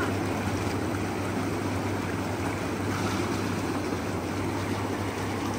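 Inflatable hot tub's air-bubble jets running: a steady blower hum under the constant rush of water churning and bubbling.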